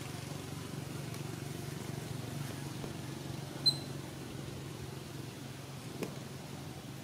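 A steady low hum, with a single short high-pitched peep about three and a half seconds in.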